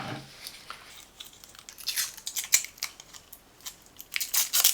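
Hands handling small plastic doorbell parts and packaging: a run of sharp clicks and crinkles, thickest near the end.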